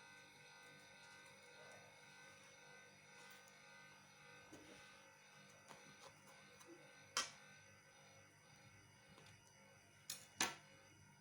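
Near silence: quiet room tone, broken by a sharp click about seven seconds in and two more in quick succession near the end.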